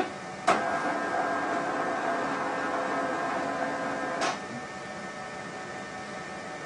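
Zebra ZXP Series 8 card printer running its card transport to draw in a moistened roller cleaning card and scrub its side rollers: a steady motor hum with several tones that starts with a click about half a second in and stops with another click a little after four seconds, leaving a fainter hum.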